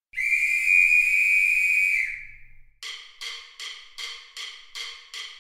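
A drumline's whistle blown in one long blast of about two seconds, then drumsticks clicking a steady count-off, just under three sharp clicks a second.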